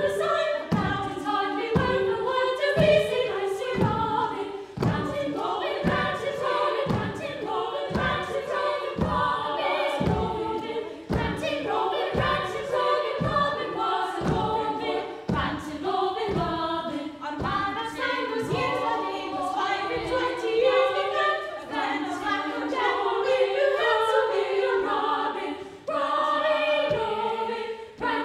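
A chorus of women singing a Scottish waulking song, with the woollen cloth thumped on the floor in time about every two-thirds of a second. The thumps stop about three-quarters of the way through while the singing goes on.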